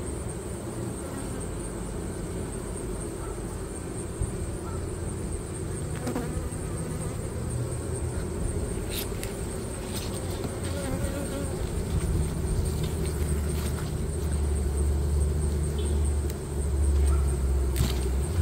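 Honey bees buzzing steadily over an open hive box, with a few sharp clicks as a metal hive tool works the wooden frames, the last near the end. A low rumble grows louder in the second half.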